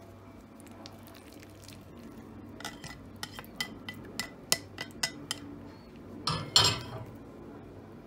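A black plastic spatula tapping and scraping against a ceramic plate while cooked eggplant is scraped off it into a plastic bowl: a run of about ten light clinks, then a louder scrape and knock near the end.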